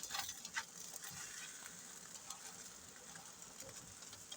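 Faint steady sizzle of an egg omelette frying in a pan, with a few light utensil scrapes or taps in the first second.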